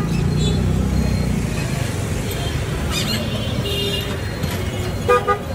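Busy street traffic heard from a moving cycle rickshaw: a steady low rumble of the ride and passing vehicles, with a few short high-pitched horn toots about three and four seconds in and again near the end.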